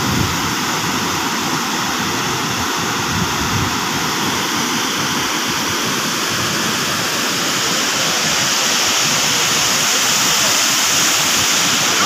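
River water pouring through the arched sluice vents of a weir and churning below them: a loud, steady rush of water that grows a little louder in the second half.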